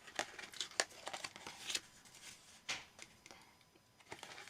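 Pages of a paper tabletop calendar being turned and handled: several short, crisp paper rustles and light taps at irregular intervals.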